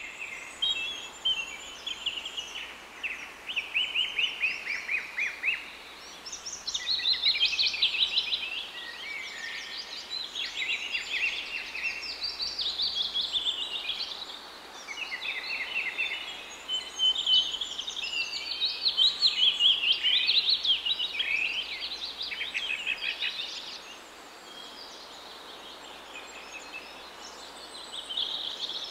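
Birds chirping and chattering, many rapid high calls overlapping, rising and falling in waves, with a quieter stretch near the end.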